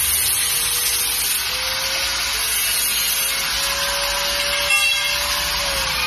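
Angle grinder cutting stainless steel tube: a steady motor whine under the harsh hiss of the disc in the metal. A sharp clank comes a little before the end, and then the motor's pitch starts to fall as it winds down.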